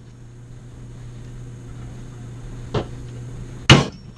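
Hammer tapping a screwdriver held against the metal sleeve of a new pool pump shaft seal, driving the seal into the seal plate: a lighter tap about two-thirds of the way through, then a sharp, louder strike near the end. A steady low hum runs underneath.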